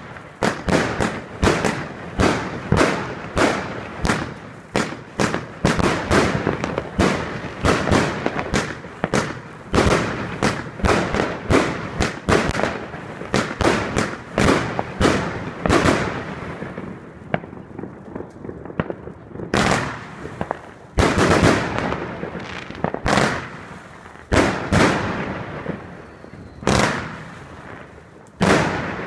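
Royal Fireworks 'Wonderful World' firework going off: a rapid string of sharp bangs, about two to three a second, then a short lull a little past halfway and sparser single bangs to the end.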